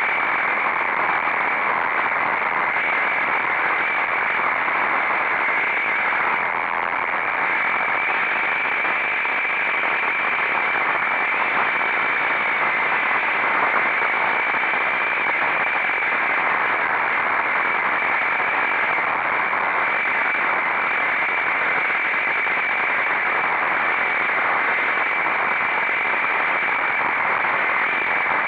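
Steady rushing wind noise on the microphone while riding a motorcycle, constant throughout with no distinct engine note.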